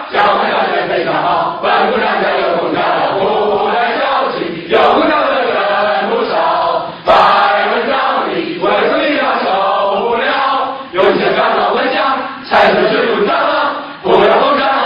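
A large crowd of students chanting a song in unison, phrase after phrase, several phrases starting abruptly loud.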